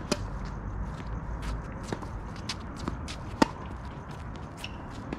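Tennis ball being struck and bouncing: a handful of sharp pops spread over a few seconds, the loudest about three and a half seconds in, with fainter ticks between them.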